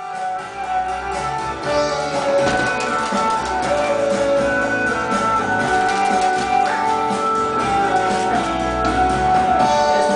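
Background music led by guitar, with steady held notes.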